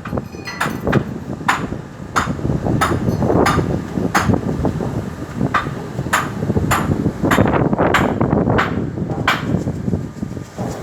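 Repeated hammer blows at an irregular pace, roughly one or two a second, each with a short ring, over a steady low rumbling noise.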